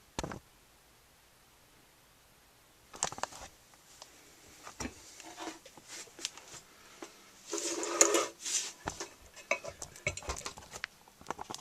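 Metal tools and parts clinking and knocking in scattered separate strikes, with a longer, louder clatter about eight seconds in: a lathe tool bit being changed over to a cutoff tool.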